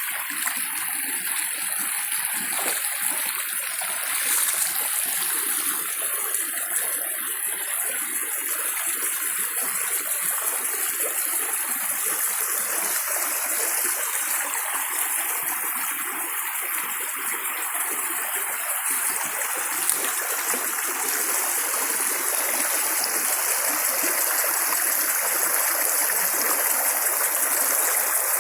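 Water running steadily in a continuous rush, growing slightly louder toward the end.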